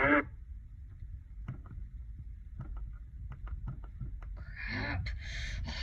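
AM radio reception with no announcement: a low hum with scattered static crackles, then a louder, wavering sound coming in about four and a half seconds in.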